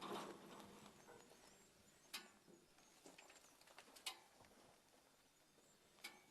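Near silence with a few faint, sharp knocks, spaced a second or more apart.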